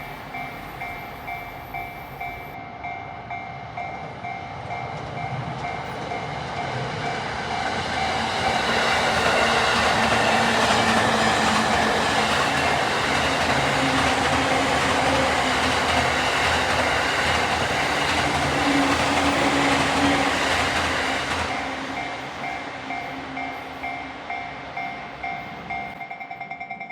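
Japanese level-crossing warning bell sounding in a steady repeating clang while a train passes through the crossing. The train's noise swells to the loudest part from about eight seconds in and fades after about twenty-one seconds. The bell keeps ringing after the train has gone, because the crossing stays closed.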